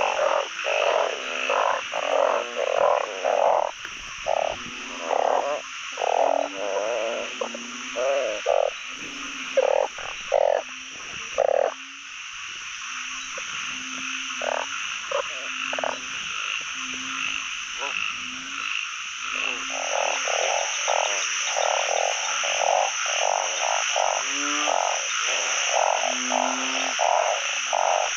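A dense chorus of frogs calling, narrow-mouthed frogs (อึ่ง) among them: many short croaks repeating and overlapping over a continuous high-pitched trill. The croaking thins out for several seconds midway, then thickens again.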